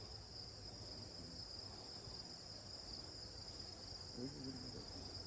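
Insects chirring steadily in two constant high-pitched tones, faint under a low background hum, with a faint murmur of voices about four seconds in.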